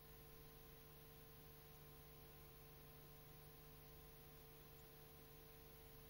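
Near silence: a faint steady hum with hiss beneath it.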